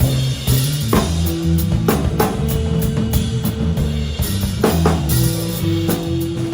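Band playing an instrumental groove on drum kit, electric bass and guitar, with bass drum and snare hits under sustained bass notes and held guitar tones.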